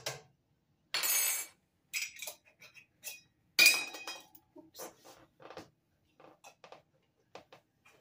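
Small glass spice jar of onion powder being handled as a teaspoon is measured from it: a series of small glassy clinks and clicks, with a short rattling burst about a second in and a sharp ringing clink about three and a half seconds in, the loudest.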